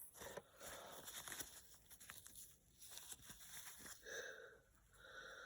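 Faint, irregular scratching and rubbing of a coin being scrubbed clean, with small clicks and a brief squeaky tone about four seconds in.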